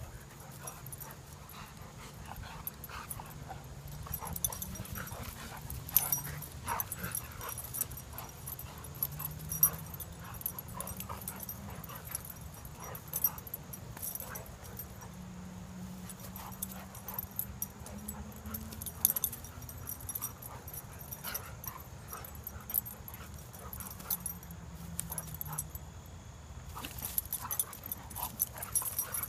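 Two dogs play-fighting: long, low growls that rise and fall in pitch, with scattered sharp clacks from their scuffling now and then.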